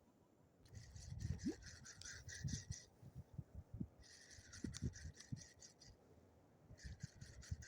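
Fishing reel being cranked to retrieve a lure, a rapid whirring tick of the gears in three spells of about two seconds with short pauses between, with light knocks of handling.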